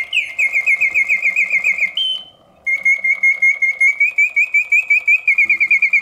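1967 Reuge singing bird cage automaton whistling its mechanical birdsong: fast trills of short falling notes, about seven a second, broken about two seconds in by a brief held note and a short pause before the trill starts again. The bellows-driven whistle hits all its proper oscillating notes, the sign of a movement in good working order.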